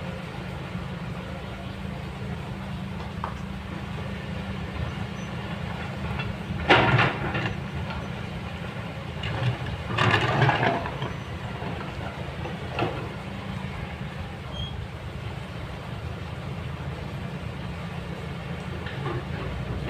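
Kobelco long-reach excavator's diesel engine running steadily under load. Stones clatter loudly against the bucket about seven seconds in and again around ten seconds, with fainter knocks of rock later.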